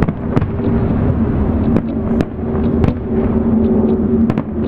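Fireworks going off: several sharp bangs and pops at irregular intervals, the strongest about half a second in, near three seconds in and a double bang near the end, over a steady low hum.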